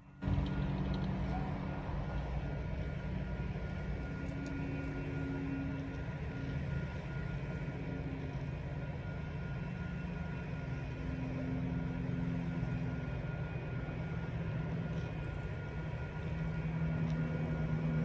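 A large engine idling steadily: a low, even hum with a few steady tones over it.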